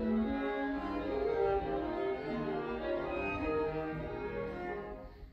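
Chamber orchestra playing contemporary concert music, with bowed strings (violin, cello, double bass) holding many overlapping sustained notes. The sound thins out and stops near the end.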